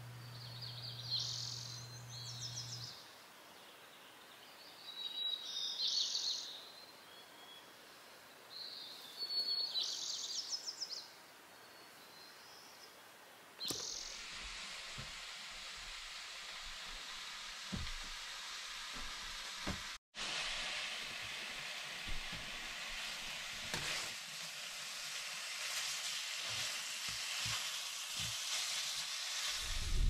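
Songbirds singing in pine forest: three short bursts of trilled song in the first eleven seconds. From about fourteen seconds in, a steady sizzling hiss of meat frying in a pan, with a few soft knocks.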